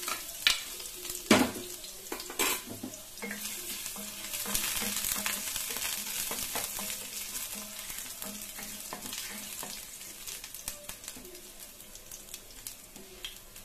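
Chopped garlic sizzling as it is tipped into hot oil in a frying pan and stirred with a wooden spatula. A few sharp knocks of utensils against the pan in the first two or three seconds, and the sizzle dies down toward the end.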